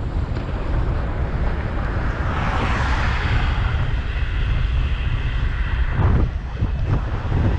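Wind buffeting the microphone of a camera on a moving bicycle, a steady low rumble. A rushing hiss swells about two seconds in and fades a few seconds later.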